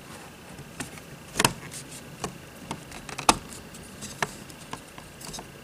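Plastic RV power inlet and cord plug being handled and fitted into the metal inlet housing: a scatter of sharp clicks and knocks, the two loudest about a second and a half in and a little past three seconds.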